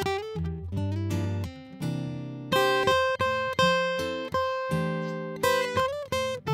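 Instrumental music on acoustic guitar: strummed chords and picked notes, some held and left to ring.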